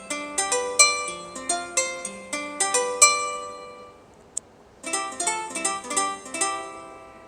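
Asus ZenFone 2 Laser ringtone: a quick plucked-string melody that stops about four seconds in and starts over after a short pause, as the ringtone loops.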